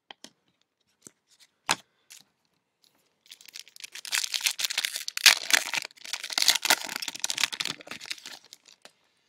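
A trading-card pack's foil wrapper being torn open and crinkled, in two long crackling stretches in the second half, after a few light clicks and taps of cards being handled.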